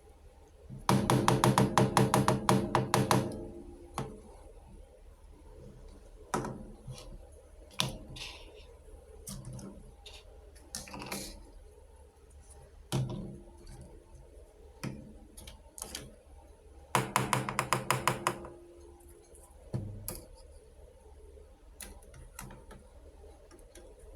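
Miniature plastic toy kitchenware clicking and clattering as it is handled. There are two runs of rapid clicks with a hollow ring, near the start and again about two-thirds through, and scattered single taps between them.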